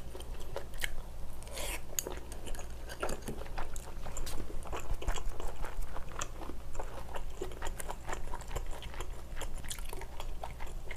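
Close-up chewing of a scallop from a spicy seafood stir-fry: soft mouth sounds with many small clicks and smacks.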